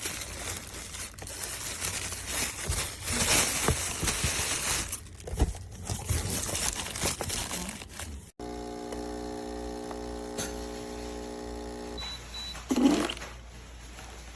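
Handling noise, rustling and clicking, for about eight seconds. After a sudden cut comes a steady electrical hum, with a short high beep about twelve seconds in and a brief louder burst just after.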